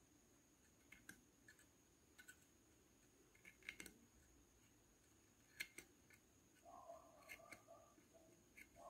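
Faint scattered clicks and scrapes as a thin metal knitting tool catches on the nails of a handmade wooden knitting frame, lifting wool loops over them. A faint steady high whine sits underneath, and near the end a faint repeated warbling sound comes in.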